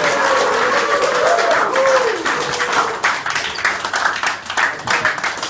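A rugby league team applauding: a long drawn-out shout of cheering over the first two seconds or so, then many hands clapping.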